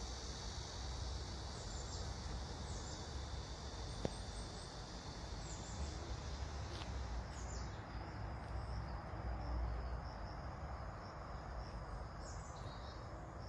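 Steady high-pitched chorus of insects in the trees and grass, thinning to one steady trill in the second half, with a few short bird chirps.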